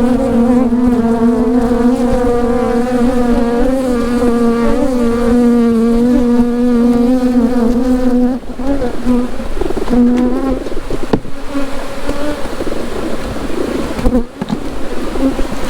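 Honey bees buzzing close to the microphone. One steady, slightly wavering drone holds for about the first eight seconds, then gives way to a more broken, scattered buzz.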